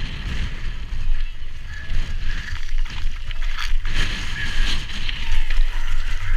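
Mountain bike rolling down bare rock and loose gravel: tyres grinding over the stone and the bike rattling and clicking, under heavy wind buffeting on the camera microphone.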